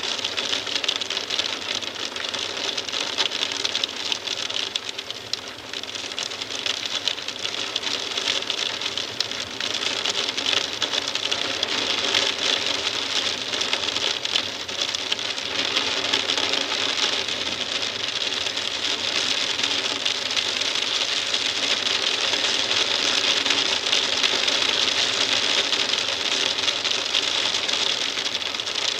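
Hail tapping on a window pane, heard from inside the room: a dense, steady patter of small rapid ticks.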